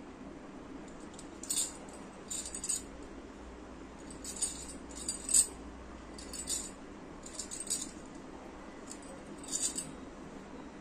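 Bangles on a wrist jingling in about seven short bursts as the arm moves, over a faint steady hum.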